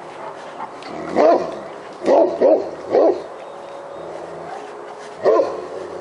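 Great Pyrenees barking at a black bear it has chased up a tree: five deep, loud barks, one at a time and then three in quick succession, with a pause before the last one.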